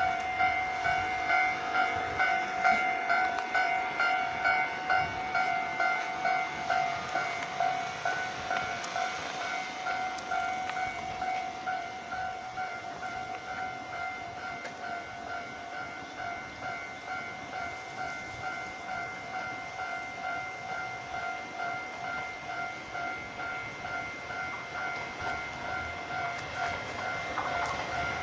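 Japanese level-crossing warning bell ringing its fast, even 'kan-kan' strokes without a break. A train runs through the crossing, louder in the first several seconds.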